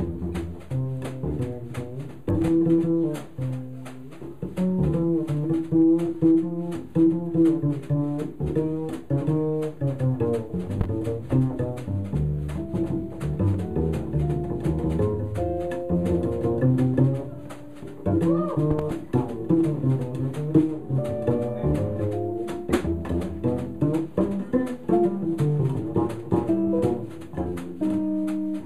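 Live small-group jazz with the upright double bass out front, plucked pizzicato in a run of quick notes, with hollow-body electric guitar and light drums behind it.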